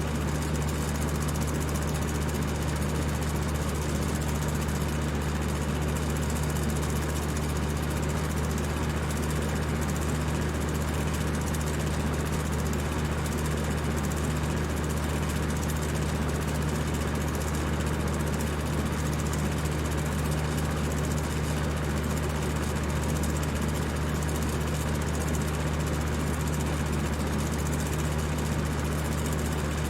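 High-speed electric fan running steadily: a low motor hum under an even rush of air.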